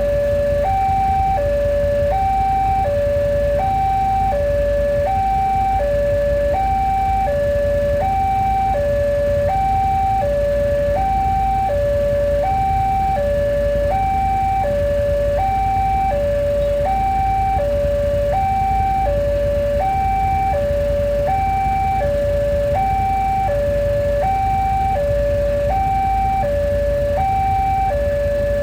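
Electronic warning alarm of a railway level crossing, sounding two tones that alternate high and low about once a second without a break: the signal that the barrier is closing for an approaching train. A steady low rumble runs underneath.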